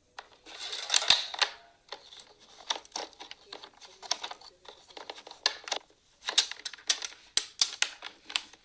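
Hard plastic playset parts being handled: a run of irregular clicks and snaps with short scraping rustles in between.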